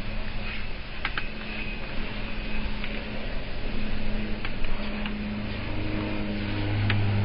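Scattered sharp plastic clicks as a laptop screen's plastic bezel is pried and unclipped from the display lid, over a steady low hum that grows louder near the end.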